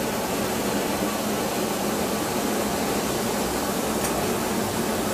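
Spiral paper tube making machine running steadily, its motor and winding belts making an even noise with a faint low hum.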